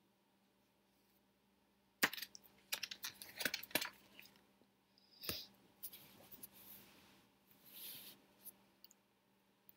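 A page of a hardcover picture book being turned and the book handled: a cluster of paper rustles and small clicks about two seconds in, then a sharp click and a few fainter rustles.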